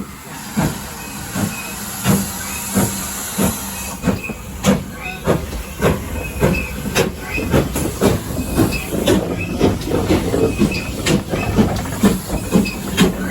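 Small prairie tank steam locomotive pulling away, its exhaust beats quickening from about one and a half a second to about three a second as it gathers speed, over a steady hiss of steam.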